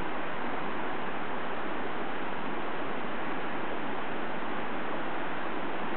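A steady, even hiss of background noise with no shots or other events.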